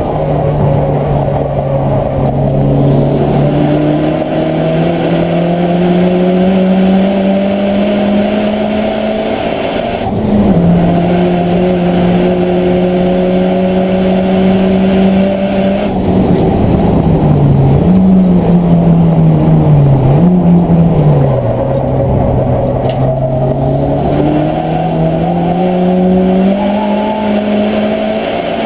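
Renault Mégane race car's engine heard from inside the stripped cabin under racing load, its note climbing slowly as the revs build. About ten seconds in the note drops and picks up again, and in the second half the revs dip and recover several times before climbing steadily again near the end.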